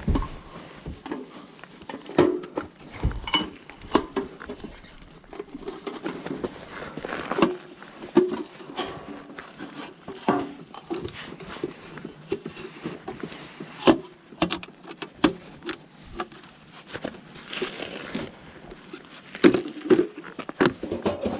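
Irregular knocks, clicks and light rustling of gear being handled during take-down of a folding wood stove, with sharper knocks scattered through and a cluster of them near the end.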